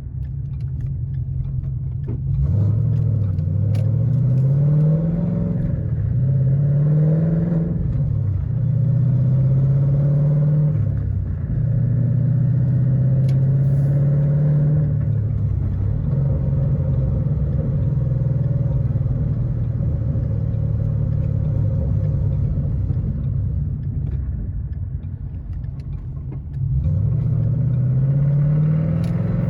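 2013 Ford Mustang GT's 5.0 Coyote V8 running, its pitch rising several times as it is revved (about two seconds in, around six seconds and near the end) and held steady between; the owner takes the engine's noise for rod knock.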